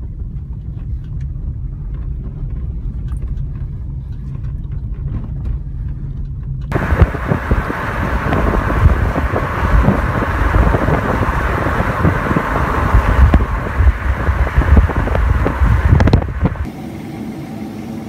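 Car driving, heard from inside: a steady low road rumble on a dirt track. About seven seconds in it cuts to loud wind rush and buffeting through an open car window at speed. Near the end it cuts to a quieter steady hum.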